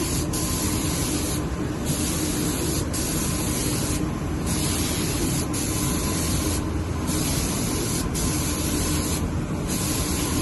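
Machinery running: a steady hissing noise over a low hum, its hiss cutting out briefly at an even rhythm about every second and a half.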